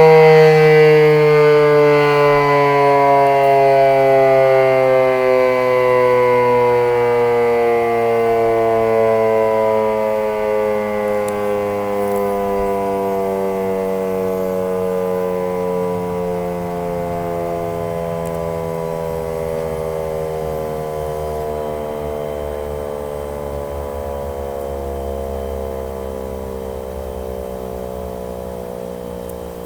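1942 Federal Electric Model 5A, a 3-phase, 7.5-horsepower, 12-port single-tone outdoor warning siren, winding down after its noon sounding: one loud, rich tone sliding slowly and steadily lower in pitch and fading as the rotor coasts to a stop. A low hum comes up underneath in the second half.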